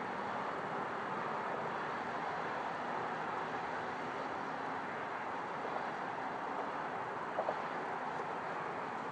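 Steady rushing background noise without any distinct source, with a faint short tick about seven and a half seconds in.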